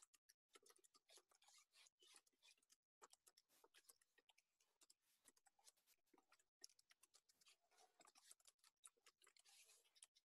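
Faint computer keyboard typing: many irregular key clicks.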